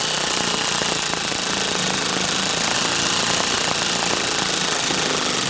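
Power driver running steadily as it drives in the door panel's upper screw, then cutting off abruptly at the end.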